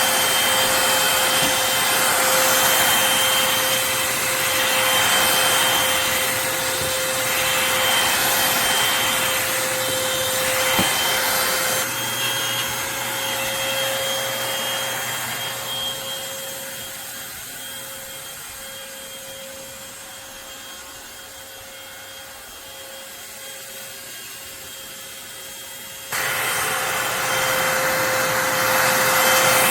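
Corded stick vacuum cleaner running with a steady whine over its motor rush. About twelve seconds in it fades to a quieter, duller sound, then jumps back to full loudness abruptly near the end.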